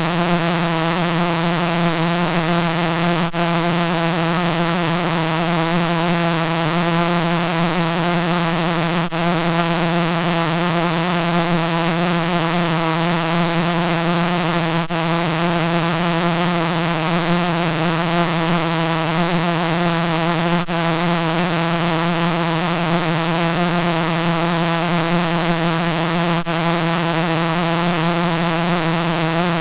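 Rubber tongue sound effect: a continuous buzzing drone held at one steady low pitch, rich in wavering overtones, with a faint click about every six seconds where it loops.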